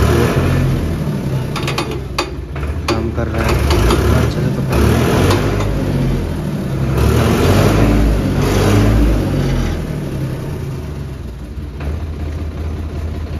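Sonalika tractor's diesel engine running, its speed rising and falling a few times, with some clatters about two seconds in. It is being run to test the hydraulic lift of the cultivator after the hydraulic filters were replaced.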